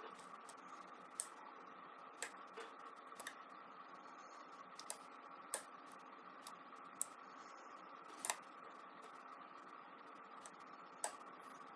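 ABUS 83/45 padlock being picked: faint, irregular clicks of the pick and pin stacks inside the cylinder, a dozen or so scattered clicks with the loudest about eight seconds in, over a faint steady hum. The picker thinks the clicking sounds like serrated pins.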